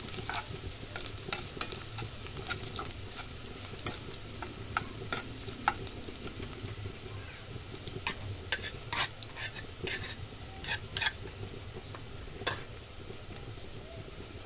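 Chopped garlic and onion sizzling in hot oil in a small saucepan, with a steady frying hiss. A metal spoon stirs them, its scrapes and clicks against the pan coming irregularly, thickest in a flurry past the middle.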